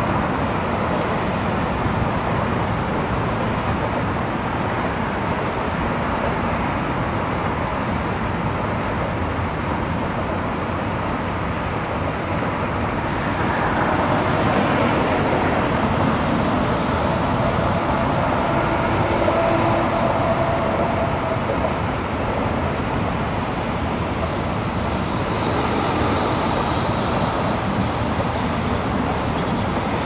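Steady city road traffic: cars and trucks running past, swelling a little louder around the middle.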